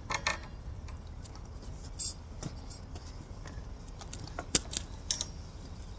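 Scattered light clicks and clinks, a few seconds apart, over a steady low rumble.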